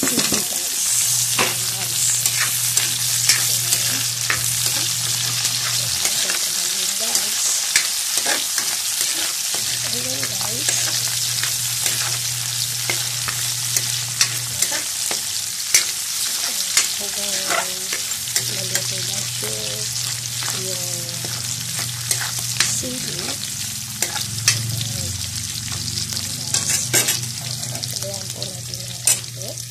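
Chopped pork, garlic, onion and peppers sizzling in hot oil in a wok, stirred with a metal spatula that scrapes and clicks against the wok again and again.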